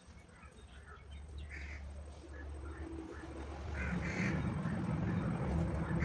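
Short bird calls, several times, over a low rumbling noise that swells about four seconds in and becomes the loudest sound.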